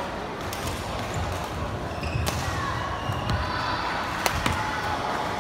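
Badminton rally on a wooden court: sharp racket-on-shuttlecock hits, the loudest a smash about four seconds in, with sneaker squeaks on the floor over the hall's background murmur.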